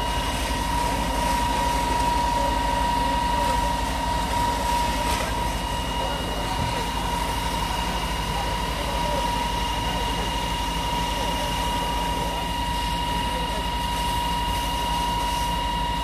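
Fire truck's engine running steadily to drive its water pump while water sprays from the hose, with a constant high whine over a low hum and the hiss of the spray.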